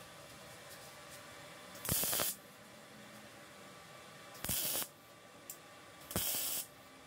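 Three short hissing blasts of compressed air from a blow gun, each about half a second long and spaced a couple of seconds apart.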